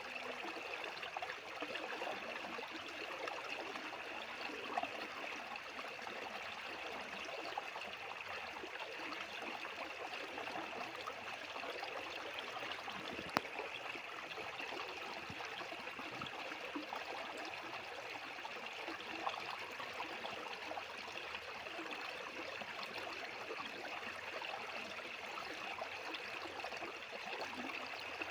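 Fast-flowing stream water rushing steadily and evenly, with one short click about halfway through.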